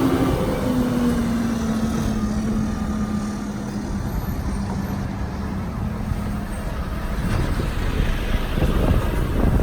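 A road vehicle's engine with a low rumble, its hum slowly falling in pitch and fading over several seconds.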